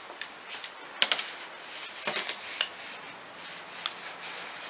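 Metal circular knitting needles clicking lightly against each other as stitches are knitted, a handful of scattered sharp ticks spread over a few seconds.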